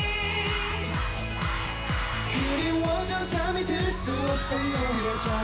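K-pop dance song performed live: male vocals sung over a synth-pop backing track with a steady thumping beat.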